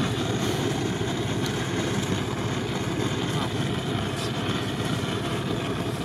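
Butane canister torch burning steadily, its flame played on a spare wheel's steel rim to melt ice inside the tyre.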